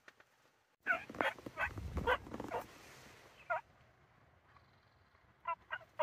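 Wild turkey gobbling: a rattling run of quick falling notes about a second in, then a single call, and several shorter calls near the end.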